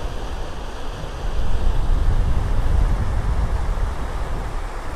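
Wind buffeting the microphone: a steady low rumble with no engine or voice in it, swelling a little after about a second.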